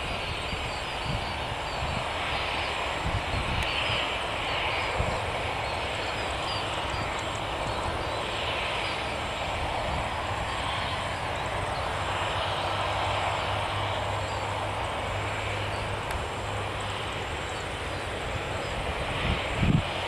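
Twin-turboprop ATR airliner on final approach, its engines and propellers giving a steady drone, with a low hum that grows stronger through the middle.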